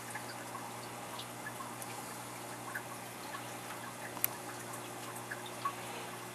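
Water trickling and dripping in a small goldfish tank, a steady hiss dotted with small plinks, over a low steady hum. A sharp click sounds once about four seconds in.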